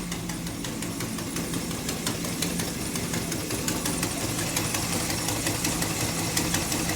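1963 Chevrolet Impala engine idling steadily with a fast, light ticking, which the owner takes for a lifter ticking on one side, possibly out of adjustment or stuck; he also knows the engine has an exhaust leak on the other side.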